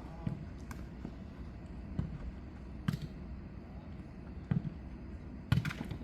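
Jokgu ball being kicked and bouncing on the court during a rally: a series of irregular sharp thumps, several in quick succession near the end.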